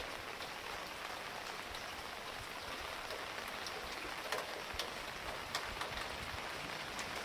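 Steady heavy rain falling, an even hiss with individual drops ticking sharply on a nearby surface.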